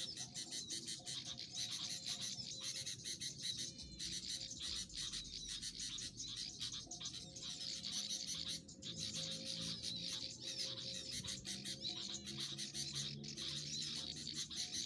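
Small birds chirping and twittering in a rapid, continuous stream of high chirps, with background music running faintly beneath.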